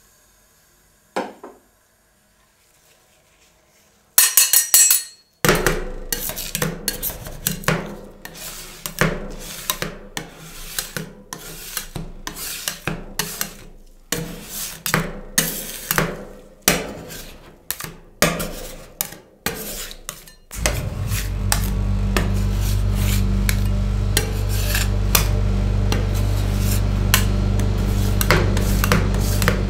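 Two metal spatulas chopping and scraping a cream and mustard mix on a stainless-steel rolled-ice-cream cold plate: repeated sharp taps of the blades on the plate with scraping between them. About two-thirds of the way through, a steady low hum starts and keeps on under the scraping.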